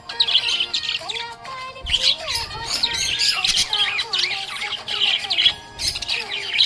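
Budgie chirping and warbling, a busy run of quick high chirps broken by a couple of short pauses.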